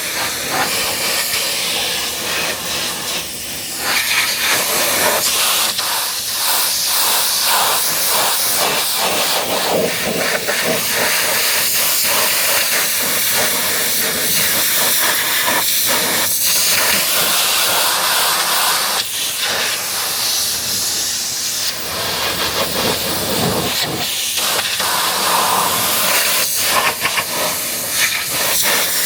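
High-pressure water jet from a pressure washer spraying onto a car's body: a loud, continuous hiss that shifts in tone as the spray moves, with a few brief dips.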